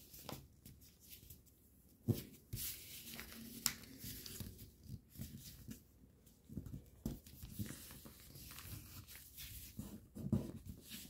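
Faint rustling and scraping of paper being folded and creased by hand against a tabletop, with a few sharper crinkles and taps scattered through.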